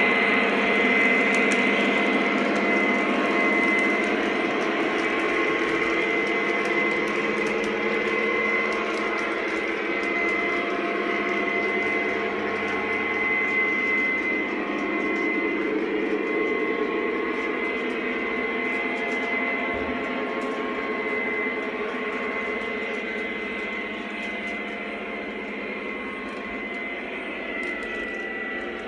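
Lionel O-gauge Norfolk Southern Dash 9 model diesel locomotive and freight cars running on three-rail track: a steady mechanical rumble with a high whine. It slowly fades as the train moves away around the layout.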